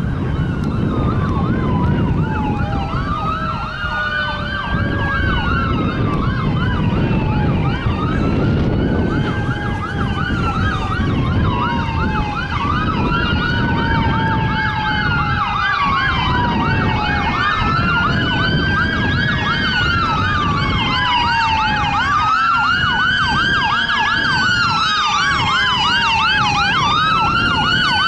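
Fire engine's emergency siren on a call, sounding a slow rising-and-falling wail together with a fast yelp, over the rumble of the truck and traffic.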